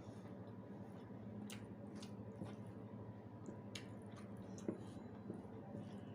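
Faint wet eating sounds: chewing and squishing of white rice with dal, with a few soft sharp clicks now and then over a steady low hum.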